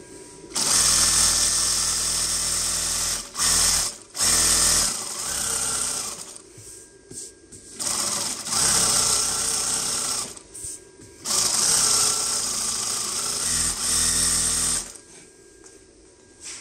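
Zoyer ZY2290-D4 computer-controlled high-speed zigzag sewing machine stitching fast, in several runs of a few seconds each with short stops and restarts between them.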